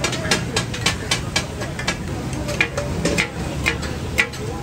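Steel spatula blades clanking and scraping on a flat iron katakat griddle, two or three sharp metallic strikes a second, some ringing, as goat offal is chopped and stirred. Under the strikes runs the steady sizzle of the meat frying in butter.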